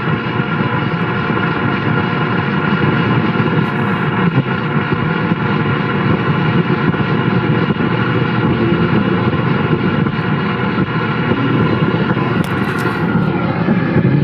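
AM car radio tuned to 1440 AM, turned up and giving a steady hiss of static with faint steady whine tones in it.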